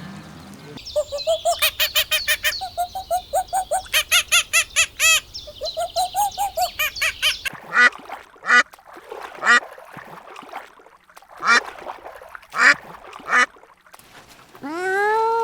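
Domestic fowl calling: a fast run of short, pitched honking calls, several a second, then slower single calls about once a second. Near the end comes one longer call that rises and falls.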